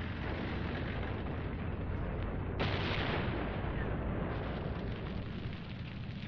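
Battle sound effects laid over archive war footage: a steady low din of artillery fire and explosions. A louder blast comes about two and a half seconds in and fades slowly.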